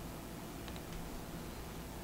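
Steady low hum and hiss, with a couple of faint light clicks a little under a second in from the metal XLR connector being handled.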